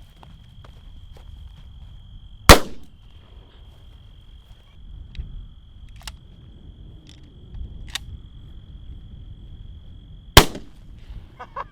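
Two gunshots, about eight seconds apart, fired at Funko Pop vinyl figures.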